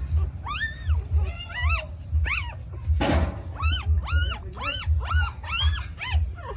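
Newborn puppies crying: short, high, arching squeals repeated about twice a second. About three seconds in there is a brief hissing burst of noise, and a low rhythmic thudding runs underneath.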